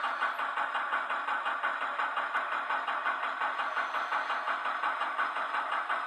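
Model diesel switcher locomotive, Pennsylvania Railroad No. 9249, its sound decoder playing a diesel engine's running sound through a tiny onboard speaker as it creeps along the track: a steady, fast, even pulse with no deep bass.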